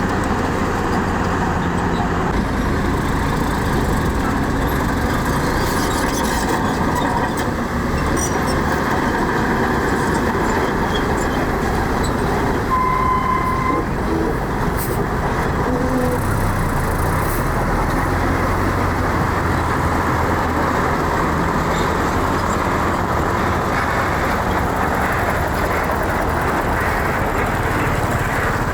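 Heavy construction machinery running steadily: the diesel engines of earthmoving equipment such as a bulldozer and dump trucks. A single short beep comes about halfway through.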